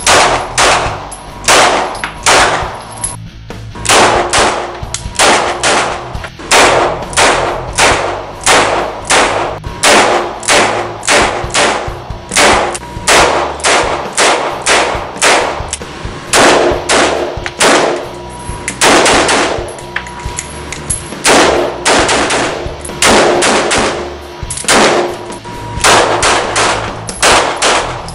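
Handgun shots fired one after another, about two a second and at times closer together, each echoing in an indoor shooting range.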